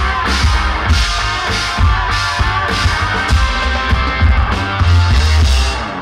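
Rock band playing live: a drum kit keeping a steady beat under electric guitars, bass and keyboards.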